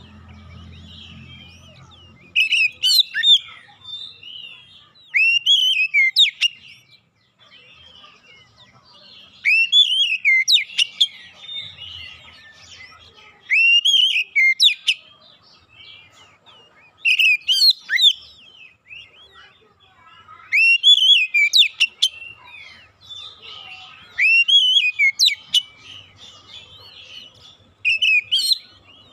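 A male Oriental magpie-robin singing: loud whistled phrases, each a rising note followed by quick high notes, repeated eight times about every three to four seconds, with softer chattering in between.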